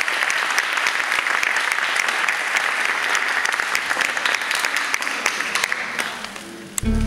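Audience applauding steadily, dense clapping that fades away about six seconds in. Just before the end, music with a low steady note starts up.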